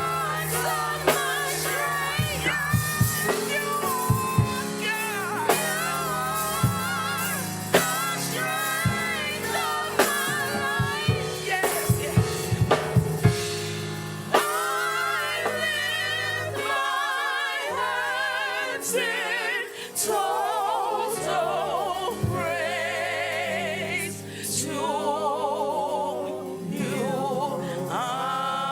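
Gospel worship music: voices singing with strong vibrato over a band with a drum kit. Drum hits punctuate the first half, then the drums drop back under long, wavering held vocal notes.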